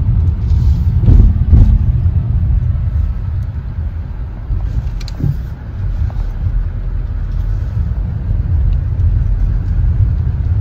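Steady low rumble of a car heard from inside the cabin, engine and road noise, with a couple of brief louder bumps about a second in.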